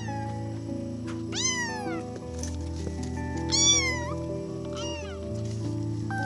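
Kitten meowing three times over background music: high-pitched calls that slide down in pitch, the second the loudest and the last a short one.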